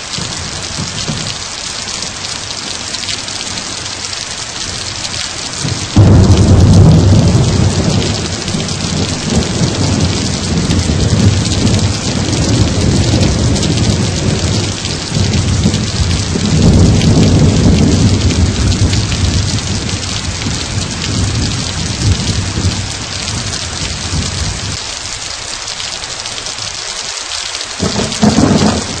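Thunderstorm: steady rain hiss, with a deep thunder rumble that breaks in suddenly about six seconds in and rolls on in waves, swelling and fading, for nearly twenty seconds. A fresh rumble begins near the end.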